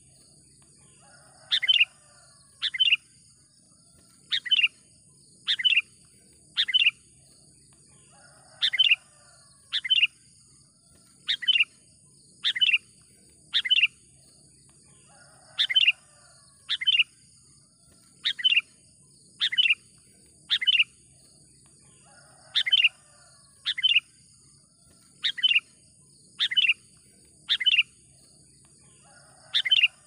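Sooty-headed bulbul calling vigorously: short, sharp, falling notes in groups of two or three, about one a second, as used for luring wild bulbuls. A steady high-pitched hiss runs behind them.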